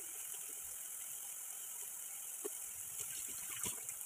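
Sliced mushrooms sizzling in oil and their own released water in an iron wok, a steady hiss with two small pops in the second half. The liquid is still cooking off before the mushrooms begin to brown.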